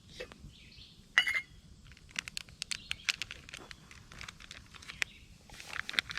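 Campfire crackling: irregular small clicks and pops, with one louder pop about a second in.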